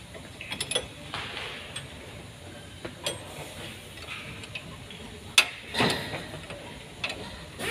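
Irregular clicks and light metal knocks from hand tools working at a car's front steering knuckle, with one sharp click about five and a half seconds in.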